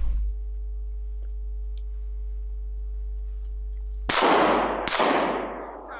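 A steady droning tone of several pitches held together, cut off a little past halfway by a shotgun shot at a flushed game bird. A second shot follows less than a second later, and each shot has a long fading echo.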